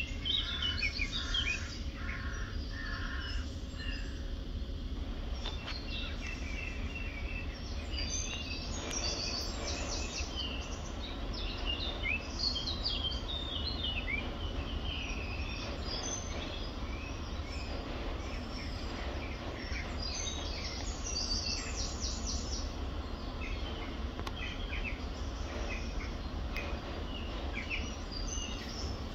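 Many small birds singing and chirping together, a busy chorus of short, high calls, over a steady low background rumble.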